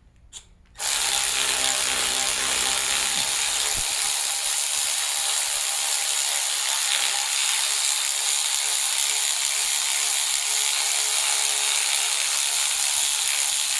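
A power tool starts suddenly about a second in and runs steadily: a loud, even, hissing mechanical noise, with a faint low hum under it for the first few seconds.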